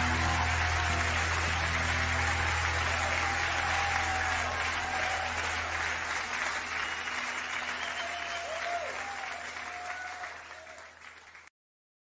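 Audience applause over the last held notes and low drone of a live music recording, fading away and cutting to silence near the end.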